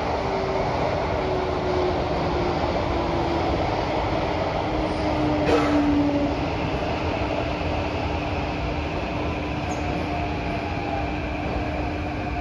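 A Kawasaki–CRRC Sifang CT251 metro train running, heard from inside the car: a steady rumble of wheels on rail with a whining tone that slides down in pitch over the first few seconds, then holds level. One short knock comes about five and a half seconds in.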